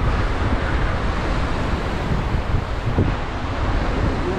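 Water rushing out of a spillway and churning into whitewater: a steady rushing, with wind buffeting the microphone.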